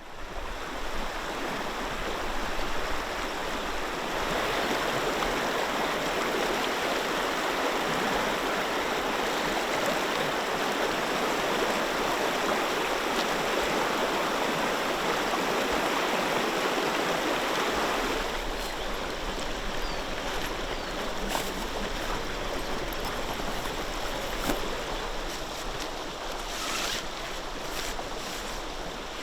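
River water rushing steadily over stones, louder for a stretch in the middle and a little softer from about two-thirds of the way in, with a few faint clicks.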